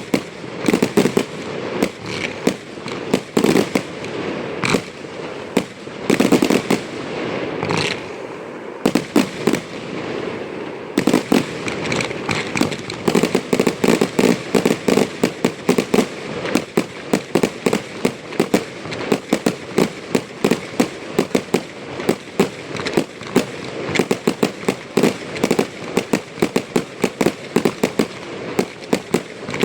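Aerial fireworks display: shells bursting with loud bangs over a crackling haze, spaced out at first, then from about eleven seconds in a fast run of sharp reports several a second.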